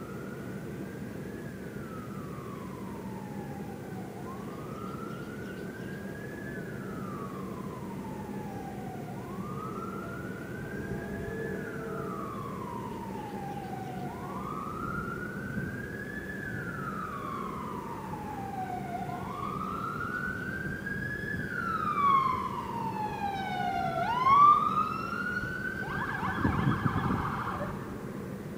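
Ambulance siren sounding a slow wail, its pitch rising and falling about every five seconds and growing louder as it approaches. Near the end the wail gives way to quicker sweeps and a short, harsher blast.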